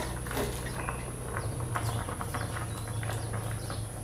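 Light clicks and rustling of spring onion stalks being laid over fish in an aluminium wok, over a steady low hum.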